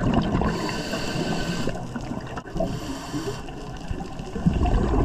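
Underwater rush and gurgle of a scuba diver's regulator and exhaled bubbles, swelling again near the end.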